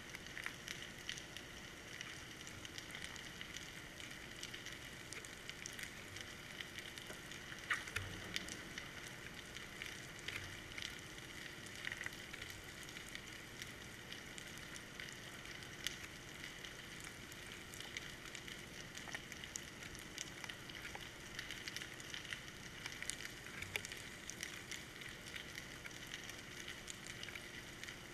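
Underwater sound picked up by a GoPro in its waterproof housing on a fishing line: a faint, steady crackle of many tiny clicks, with a soft knock about eight seconds in.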